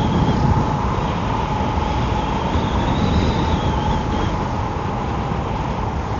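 Wind rushing and buffeting over the microphone on a moving Emove Roadster electric scooter, with the steady high whine of its hub motors.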